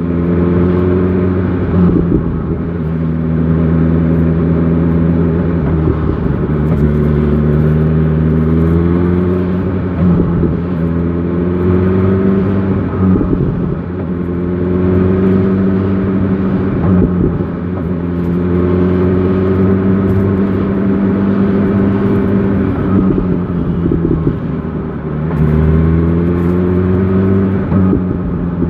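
BMW XR sport-touring motorcycle engine under way, rising in pitch as it accelerates and dropping back at each of several gear changes.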